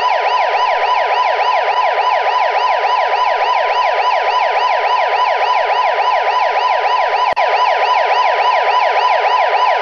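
Police car siren in a fast yelp, its pitch sweeping up and down about four times a second.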